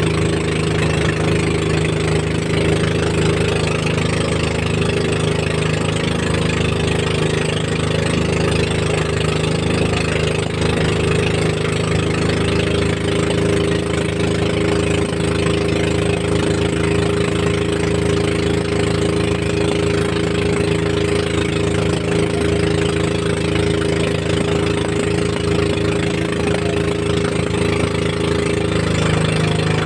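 Outrigger fishing boat's engine running steadily while the boat is under way, at an even, unchanging pitch.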